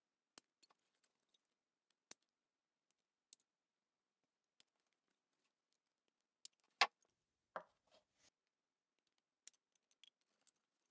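Small flush cutters clicking and snipping against the thin metal tabs of a power tool battery pack's plastic cell holder: quiet scattered clicks. The loudest click comes about two-thirds of the way in, a short scrape follows it, and a quick run of clicks comes near the end.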